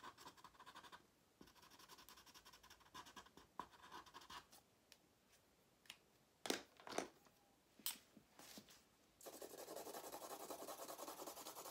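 Permanent markers scratching on paper in quick colouring strokes as shapes are filled in. The scratching drops away for a few seconds in the middle, where a few sharp clicks sound, then comes back denser near the end.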